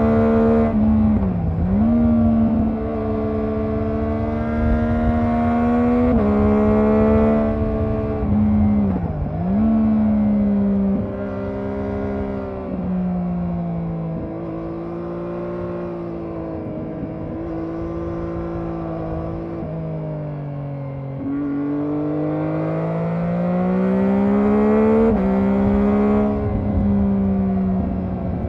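Triumph Daytona 675R's three-cylinder 675 cc engine with stock exhaust, heard from the bike while riding. The revs dip briefly and recover twice, hold steadier and lower in the middle, then drop and climb strongly on the throttle near the end.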